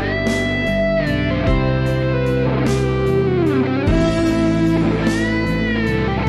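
Lead melody on a headless seven-string Strandberg Boden electric guitar: long sustained notes, several bent up and down in pitch, over a backing track with steady low chords and a light beat about twice a second.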